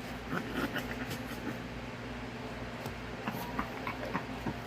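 Quiet eating sounds: faint chewing and scattered small clicks of food and utensils, over a steady low electrical hum.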